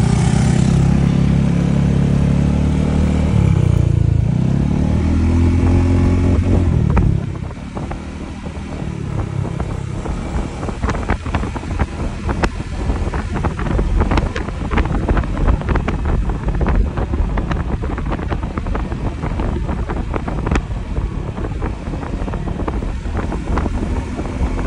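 Motorcycle engine revving hard as the bike accelerates from a standstill, its pitch sweeping over the first seven seconds. It then drops back under the rush of wind buffeting the microphone at cruising speed, with rapid gusty thumps.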